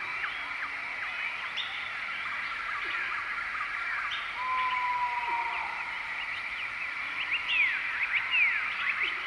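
Nature ambience of many birds chirping and whistling in quick short notes over a steady high hum. About four and a half seconds in, one whistled note is held for about a second. The chirping grows busier and louder near the end.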